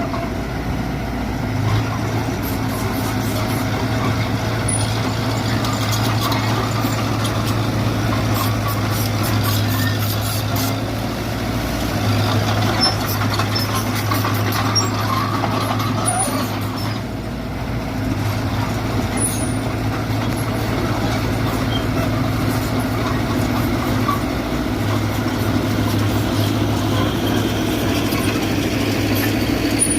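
Diesel engine of a Mitsubishi BD2G bulldozer running steadily with a deep hum, dipping briefly in loudness about halfway through, with scattered faint clicks.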